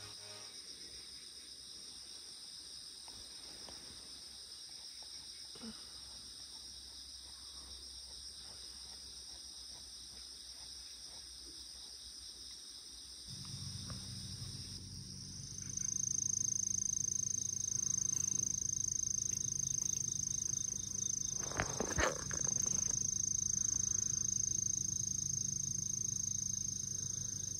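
Steady outdoor summer insect chorus, high and continuous. About halfway through, a low steady hum joins in, and a louder, single high-pitched insect drone sets in soon after. A short bump is heard a little later.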